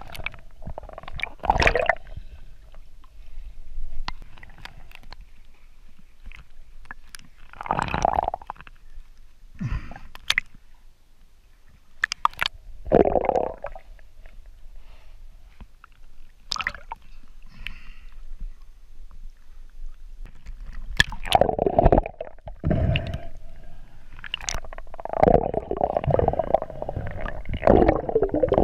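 Muffled underwater gurgling and rumbling heard through a GoPro's waterproof housing, in bursts every few seconds and more continuous near the end.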